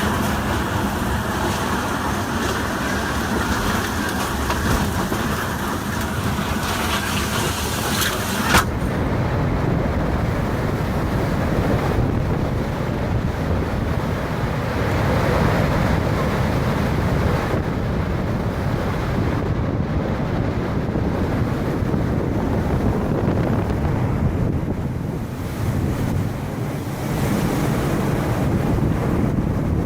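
Storm-force wind buffeting the microphone: a loud, steady rushing noise heavy in the low end. A little over eight seconds in, a sharp crack is heard and the sound turns abruptly duller and lower.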